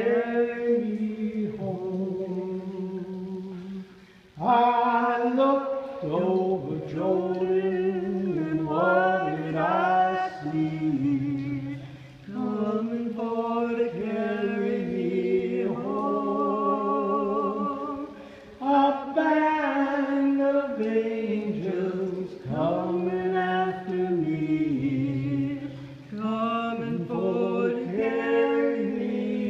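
A man and a woman singing a song together unaccompanied, in long held notes, with two short breaks for breath.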